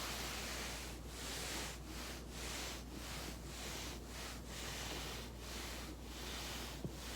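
Body rolling back and forth on a foam roller: a steady rubbing, scuffing hiss that breaks off briefly at each change of direction, about once or twice a second, with one short pop near the end.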